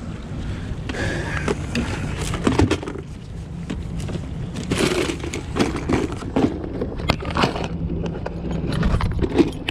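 Clear plastic bag of fishing lures being handled and rummaged through: crinkling plastic and many short clicks and rattles of the lures, over a steady low rumble.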